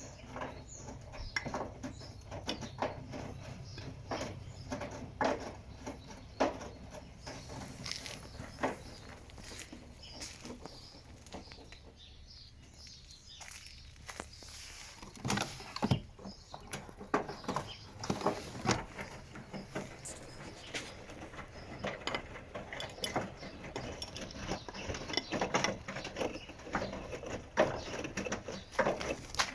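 Washing machine running a wash cycle: wet laundry tumbling and splashing in the turning drum, heard as irregular patter and clicks over a low motor hum. About 12 seconds in there is a short lull before the tumbling picks up again.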